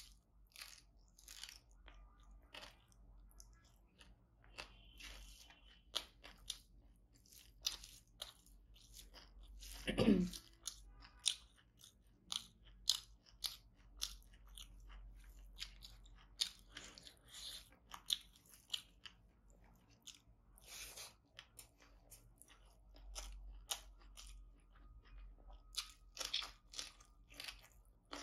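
Close-up chewing and crunching of fried tilapia with rice eaten by hand: a steady run of short, sharp crunches and wet mouth clicks. About ten seconds in there is one louder short throat sound that drops steeply in pitch.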